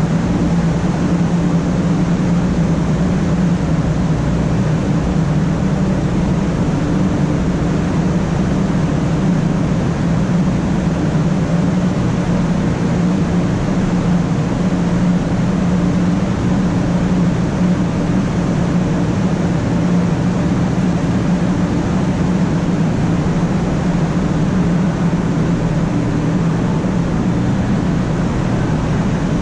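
Steady running noise inside the passenger cabin of a 500-series Shinkansen: an even low hum over a rushing wash of air and rail noise.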